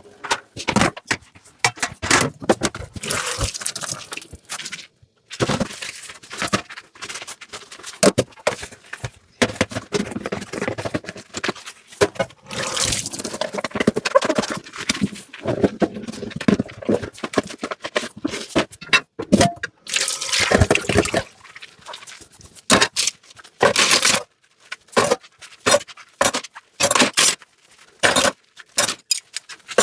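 Dishes being washed by hand at a sink: water splashing and scrubbing, with dishes and utensils clinking and knocking together, the sharp clicks coming thicker in the second half.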